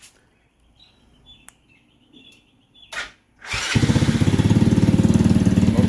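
Single-cylinder 125cc motorcycle engine, a Honda CG125 clone with its exhaust baffle removed, started by the alarm kit's remote start with the key out. After a brief crank about three seconds in, it catches and settles into a steady, evenly pulsing idle.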